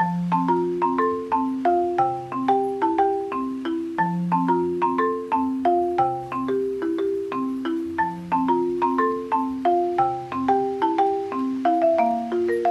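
Background music: a bright melody of struck, quickly fading notes on marimba-like mallet percussion, with chords over a lower bass line, at a lively steady pace.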